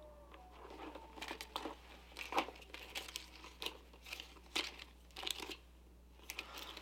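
Light crinkling and rustling as a new sneaker and its attached plastic price tags are handled: a dozen or so short, irregular crackles and taps.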